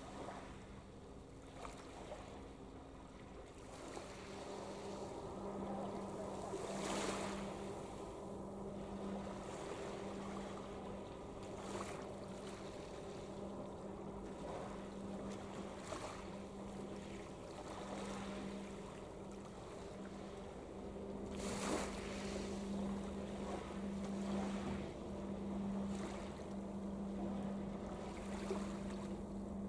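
Ship engines running across the water with a steady low hum that swells and fades. Wind gusts on the microphone come over it, strongest twice.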